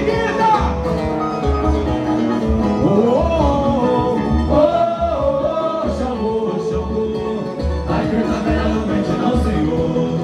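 Live samba music: a male singer on a microphone sings a samba-enredo refrain over plucked strings and a steady low drum beat pulsing about once a second.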